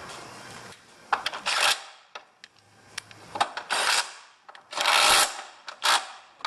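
Metal hand tools at work on 13 mm bolts: four short rasping bursts with sharp clicks between them, the loudest a little after halfway.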